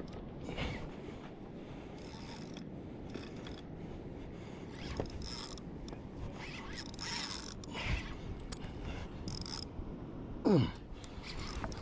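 A fishing reel being cranked while fighting a tarpon, a steady mechanical ratcheting clatter with small clicks. Near the end, a loud, short squeal falls sharply in pitch.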